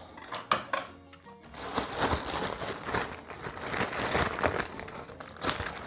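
Plastic courier packaging crinkling and rustling as it is handled and opened, over faint background music.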